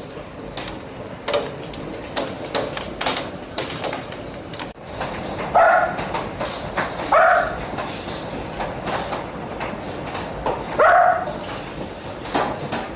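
Hail pounding down: a steady hiss packed with sharp hits of ice stones. A dog barks three times over it, about six, seven and eleven seconds in.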